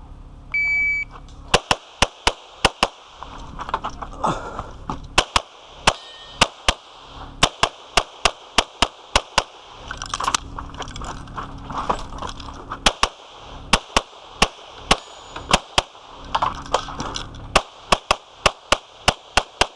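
A shot timer beeps once, then a Glock 24 .40 S&W pistol is fired in quick pairs and strings, dozens of shots with short pauses between groups.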